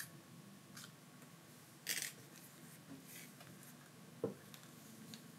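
Faint clicks and scraping as the SIM card tray is slid out of an LG K50S smartphone and the phone is handled. There is a short scrape about two seconds in and a light knock just after four seconds.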